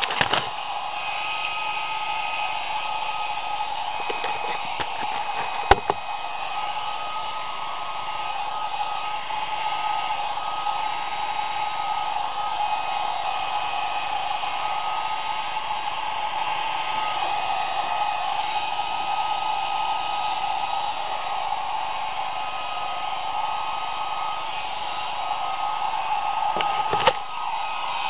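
Hair dryer running steadily, a rushing blow with a held motor whine. Two brief sharp clicks cut through it, one about six seconds in and one near the end.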